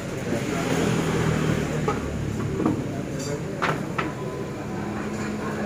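Sharp metal clinks and knocks of a ladle and lids against large aluminium cooking pots, several of them through the middle, over a steady low rumble.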